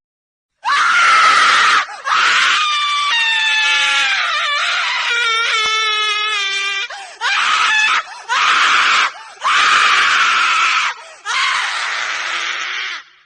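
A woman screaming, over and over: after a brief silence come about six loud, high screams, the second held for nearly five seconds with a wavering pitch, the rest shorter, with brief breaks between them.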